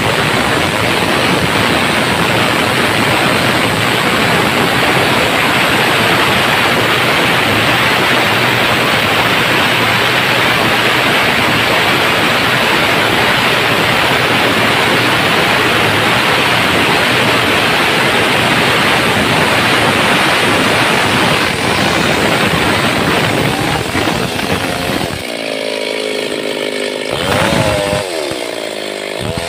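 Stihl chainsaw ripping lengthwise along the grain of a squared timber beam, its engine held at full throttle under load. About 25 seconds in, the chain clears the cut, and the engine note drops and wavers up and down as the throttle is eased and blipped.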